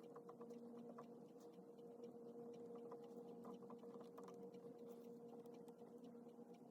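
Faint scratching and light ticking of a pen writing on paper, irregular and soft, over a steady low electrical hum.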